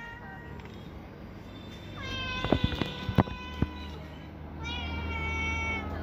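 A domestic cat meowing three times: a brief meow at the start, a long drawn-out meow about two seconds in that falls slightly in pitch, and another meow about four and a half seconds in. A few sharp clicks sound during the long meow, and a low steady hum comes in near the four-second mark.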